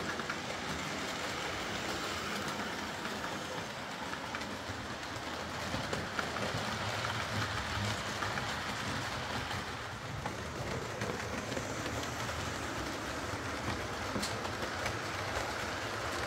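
OO gauge model train running along the layout track: the tender-drive Hornby Class A4 locomotive and its coaches make a steady running noise, with light clicks as the wheels cross rail joints. The locomotive is back in running order after its repair.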